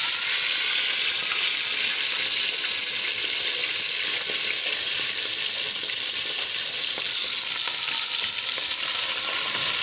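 Boneless milkfish frying skin-side down in hot oil in a pan: a loud, steady sizzle with oil spattering.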